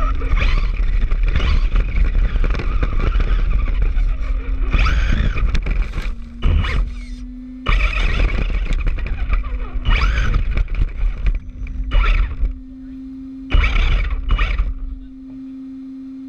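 Electric RC buggy driving in several bursts with short pauses between them: the noisy rush of tyres, drivetrain and wind on the car-mounted microphone. A steady low hum carries on through the pauses.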